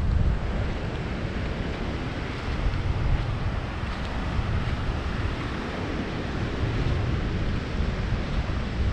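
Steady wash of ocean surf with wind buffeting the microphone in a low, continuous rumble.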